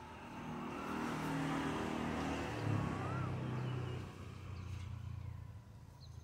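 A motor vehicle passing on the road: its engine and tyre noise swell over the first second or so, hold, then fade from about four seconds in.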